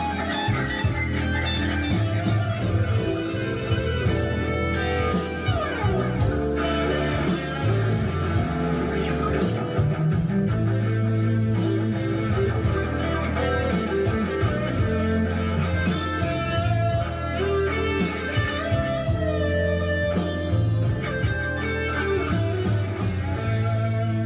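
Guitar-led background music playing as an outro.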